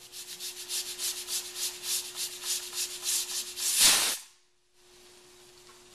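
Stovetop pressure cooker whistling: steam escapes past the weighted valve in a rapid pulsing hiss, about six pulses a second, building to one loud blast about four seconds in that cuts off suddenly. The whistle signals that the cooker has come up to full pressure.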